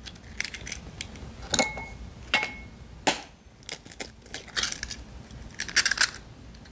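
Raw eggs being cracked open over a ceramic bowl: a handful of sharp cracks and crunches of eggshell breaking and being pulled apart, two of them with a brief ringing note.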